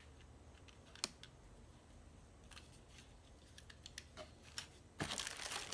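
Small plastic clicks and taps as a plastic dashcam is handled, with one sharper click about a second in. Near the end a plastic bag starts crinkling, the loudest sound.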